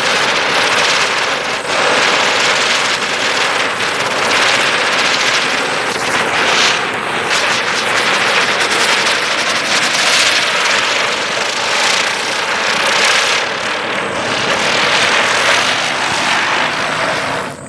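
INC Deluxe ground chakra (ground-spinner firework) burning and spinning with a loud, continuous hiss that swells and eases a little.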